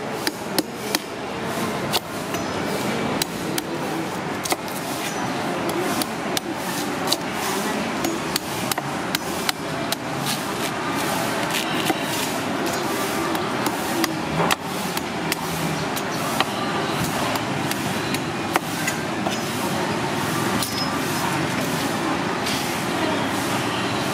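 Long knife chopping the husk off a young coconut against a wooden chopping block: an irregular series of sharp chops, a few a second, over steady background noise.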